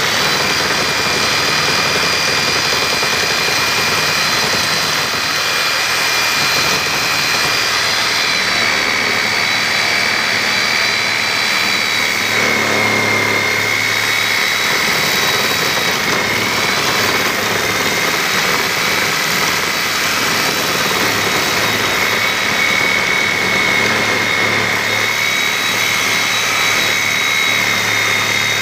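Reciprocating saw with a Lenox diamond-grit blade cutting through a concrete block: a steady high whine over a gritty rasp. The pitch sags slightly a few times as the blade bears down in the cut.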